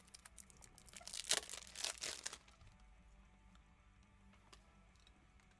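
Handling noise: a few quick bursts of rustling and crinkling as a trading card and its plastic packaging are handled, over the first two seconds or so. After that there is only a faint low hum.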